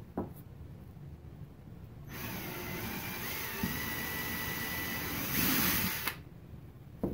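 Cordless drill running for about four seconds, its twist bit boring into a cast epoxy resin jewel, with a steady whine that gets louder just before it stops. A short click comes before the drilling and another after it.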